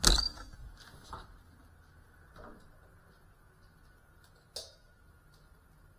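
A hard knock as the camera lands on a hard floor, followed by a few faint knocks and one sharp click about four and a half seconds in.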